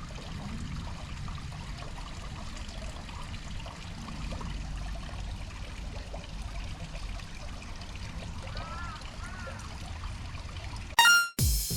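Steady trickle of running water with a low wind rumble on the microphone, two short chirps near the end, and music cutting in just before the end.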